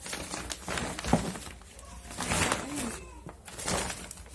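Plastic packaging crinkling and rustling as it is handled, in several sharp crackles. A bird calls low in the background with two short rising-and-falling calls.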